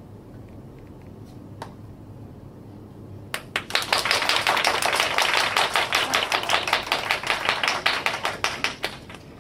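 A rapid run of sharp clicks, many a second, starts abruptly about three seconds in and lasts about six seconds. Before it there is only a low hum and a single click.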